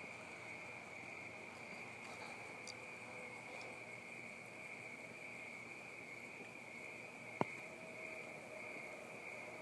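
Steady high-pitched chorus of crickets trilling without a break, with a single sharp click about seven and a half seconds in.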